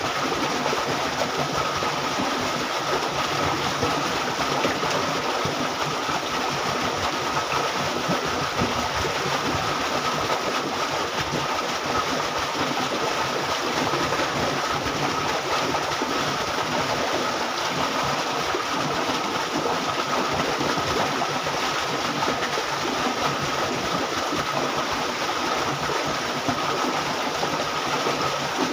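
Water rushing steadily through a narrow concrete irrigation canal.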